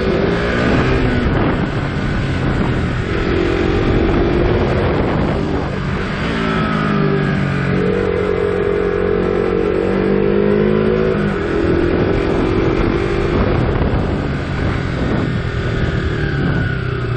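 KTM RC motorcycle's single-cylinder engine under way, its pitch rising and falling as it accelerates and shifts gear, over a steady rush of wind noise.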